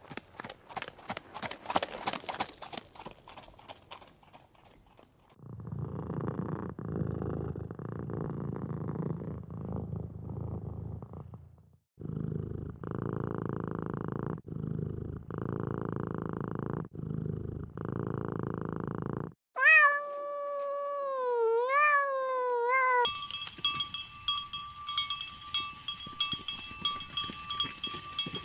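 Domestic cat purring: a low, dense rumble that pulses with each breath in regular cycles of about a second. It is followed by one long, wavering meow, the loudest sound here. Quick clicking comes before the purring, and a steady high tone with clicking follows the meow.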